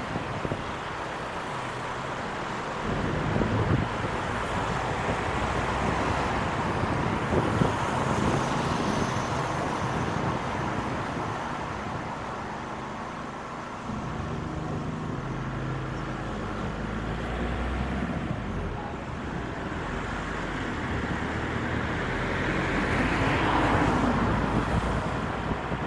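A car driving along the road: steady tyre and road noise with low engine rumble. It swells for a few seconds near the end.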